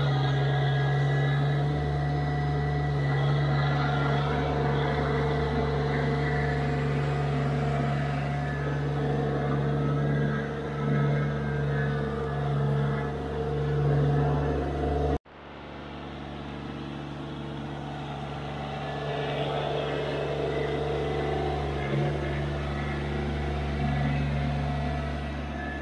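Subcompact tractor engine running steadily at working speed. It cuts off abruptly about halfway through and resumes slightly quieter.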